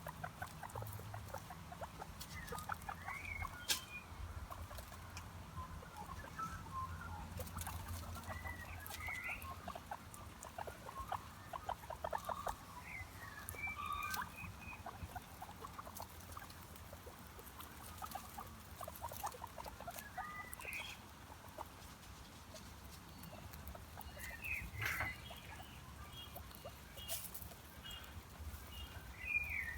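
An animal's short high squeaks and chirps every few seconds, some gliding in pitch, over light rustling and scattered clicks.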